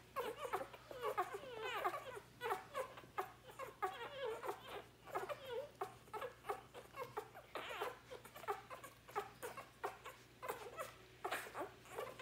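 Newborn Labrador puppies squeaking, grunting and whimpering as they nurse. Short, wavering little calls overlap one another, amid the clicks of their suckling.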